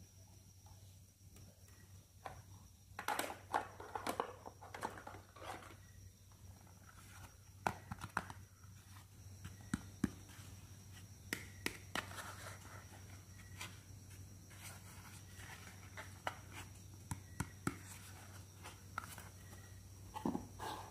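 Hands handling small hard-plastic toys: scattered clicks, taps and light scraping as plastic pieces are picked up, turned over and set down on a tabletop, in several clusters. A faint steady hum runs underneath.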